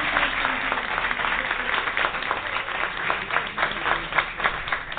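A small audience applauding, dense clapping at first that thins out to more scattered, separate claps near the end.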